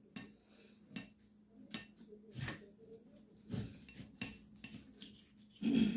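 Knife cutting through a bacon-topped double cheeseburger, the blade clicking and scraping against the glass plate in short separate strokes, the loudest near the end.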